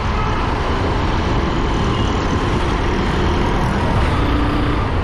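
A motorcycle running at road speed in city traffic, with wind rushing over the microphone: a steady, loud rumble with a flickering low end.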